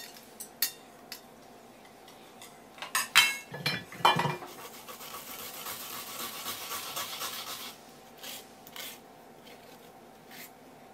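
Light clinks of metal chopsticks and a clatter of dishes being moved on a wooden counter, then fresh wasabi root rubbed on a grater, a steady rasping for about three seconds, followed by a few soft taps.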